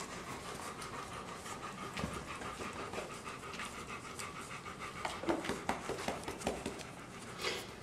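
Adult golden retriever panting steadily, a nursing mother standing over her four-week-old litter as they feed.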